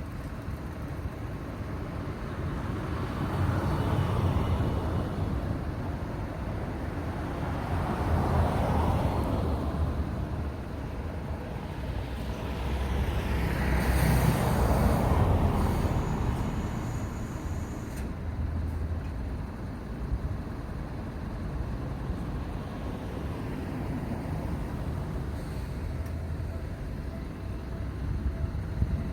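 Road traffic: vehicles driving past over steady road noise, with three louder passes about 4, 9 and 15 seconds in, each swelling and fading over a few seconds.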